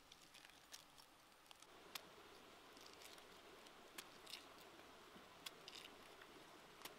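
Near silence: a faint steady hiss of background ambience with a few scattered soft clicks.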